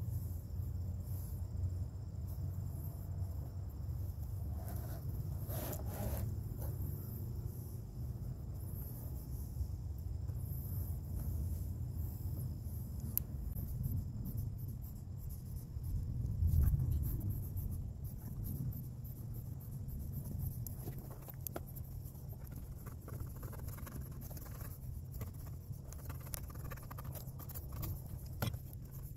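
Scattered light scrapes and small clicks of hand work, over a steady low rumble.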